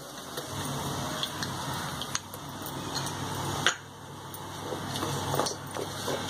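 Onions and whole spices frying in ghee in an electric rice cooker pot: a steady sizzle with scattered crackles under a low hum, and a sharp click about three and a half seconds in as coconut paste is added.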